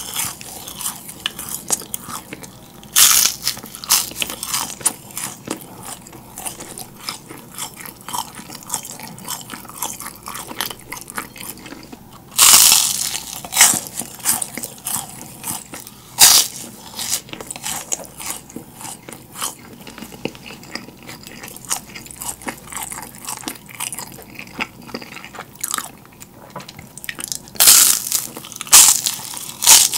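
Close-miked biting and chewing of crisp yugwa, Korean fried rice cookies coated in puffed rice, with dense crackly crunching. Loud bites come about three seconds in, twice in the middle and several times near the end.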